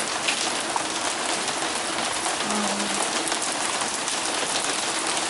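Heavy rain mixed with small hail pelting down: a dense, steady hiss thick with fine ticks of pellets striking.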